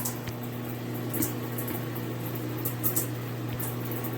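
Water spraying from a shower head, an even hiss with irregular brief splashy flares, over a steady low electrical hum.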